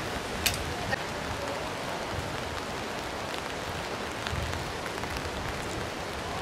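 Steady rain falling, an even hiss with a couple of sharp drip-like ticks about half a second and a second in.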